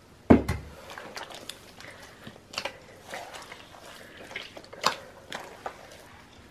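Hand squeezing and kneading wet teff dough in a plastic basin, working water in to make injera batter: irregular soft wet squelches, with one thump about a third of a second in.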